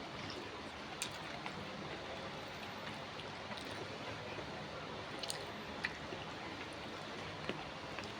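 A person chewing and eating food, with wet squishy mouth sounds and a few sharp clicks, about four in all, over a steady background hiss.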